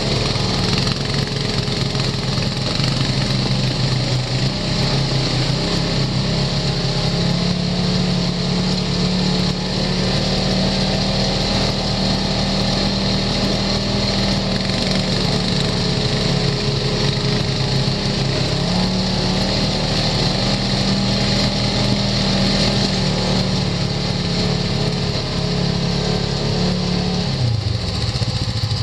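Side-by-side UTV's engine running steadily as it drives along a dirt trail, its pitch wavering a little with the throttle. The engine note drops near the end as the vehicle slows to a stop.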